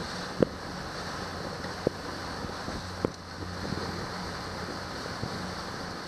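A motorboat's engine running steadily with wind buffeting the microphone and water rushing past the hull. Three short sharp knocks, the first and loudest about half a second in.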